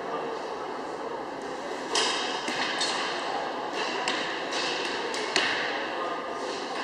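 Arrows striking straw target bosses, with two sharp hits ringing in the hall, about 2 and 5.5 seconds in, and a few smaller knocks between them, over a steady background hum.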